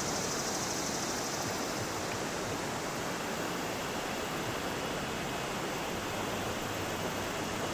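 River water flowing, a steady even rushing noise with no breaks.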